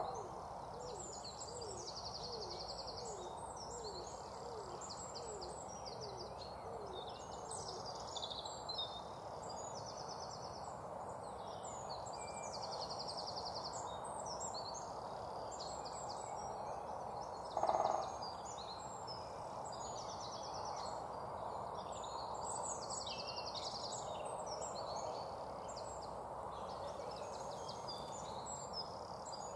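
Wild birds singing, with high trilled phrases repeated every second or two over steady outdoor ambience. A quick series of lower chirping notes runs through the first several seconds. A short, louder hoot-like call comes at the start and again about two thirds of the way in.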